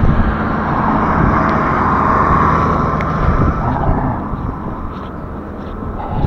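A motor vehicle running close by, its engine hum swelling in the first few seconds and then easing off as it moves away.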